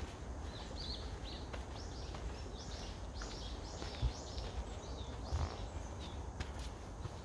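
A songbird singing a quick series of short, arched chirping notes, two or three a second, pausing about five seconds in. Soft footsteps and a steady low rumble lie underneath.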